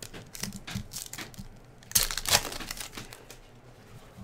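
Foil wrapper of a basketball trading-card pack crinkling and tearing as it is ripped open. It makes a quick run of crackles with the loudest burst about two seconds in.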